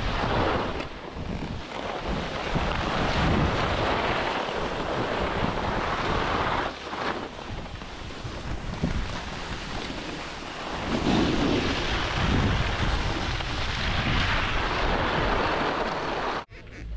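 Wind buffeting the microphone of a camera moving downhill on skis, mixed with the rushing hiss of skis sliding over packed snow. It cuts off abruptly near the end.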